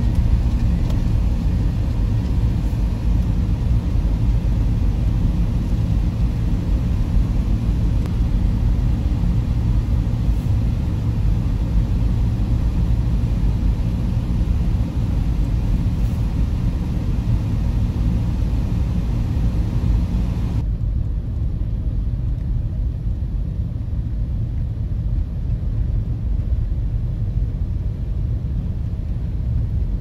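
Inside a moving car on a snow-covered road: a steady low rumble of tyres and engine. About two-thirds of the way through, the higher hiss above the rumble drops away.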